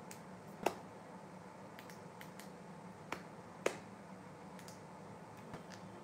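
Several sharp, isolated clicks over a faint steady hum. The loudest comes about half a second in, and a pair about half a second apart falls a little past the middle.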